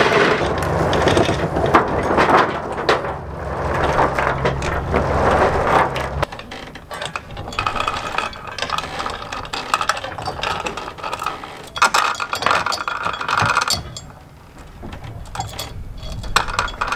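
Galvanised steel anchor chain rattling and clinking, link over link, as it is hauled aboard a sailboat and fed into the chain locker. A low steady rumble lies under it for the first six seconds or so, then stops abruptly.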